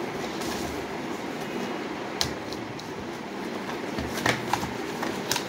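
Cardboard product box being handled and opened by hand: a sharp click or tap about two seconds in and a few more near the end, over a steady background hum.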